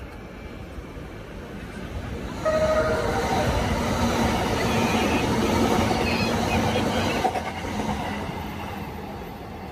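Keikyu electric commuter train passing close by, with a short horn blast about two and a half seconds in as the noise jumps up; the train noise stays loud until about seven seconds in, then fades.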